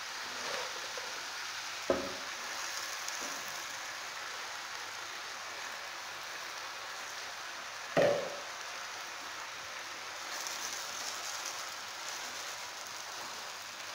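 Chopped spinach sizzling with a steady hiss in hot oil in a pan as more leaves are tipped in and stirred with a wooden spoon. Two sharp knocks stand out, about 2 and 8 seconds in, the second louder.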